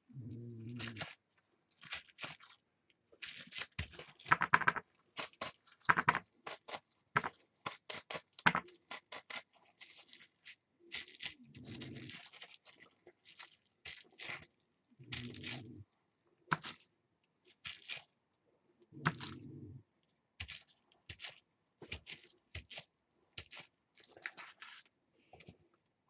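Plastic bubble wrap crinkling and scraping in short, uneven bursts as it is pressed and rubbed by hand onto a paper tag to print paint texture.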